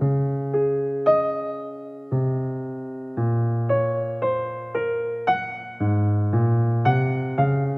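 Background piano music: a slow, gentle melody of single notes struck about every half second, each fading away, over held low notes.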